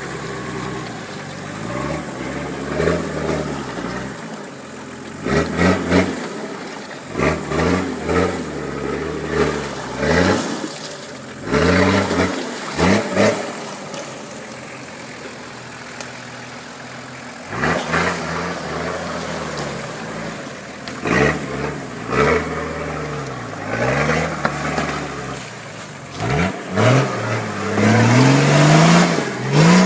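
Car engine revving hard in repeated short bursts, the pitch rising and dropping every second or two, then climbing to a long, sustained high rev near the end.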